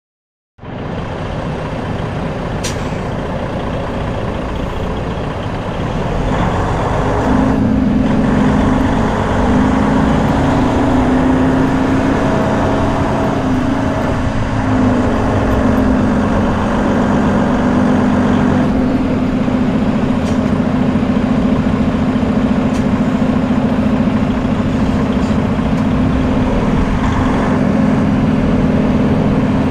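Freightliner Cascadia semi truck under way: a steady heavy-engine drone over loud road noise. It begins abruptly, the engine tone comes in a few seconds later, wavers in pitch briefly about halfway, then holds steady.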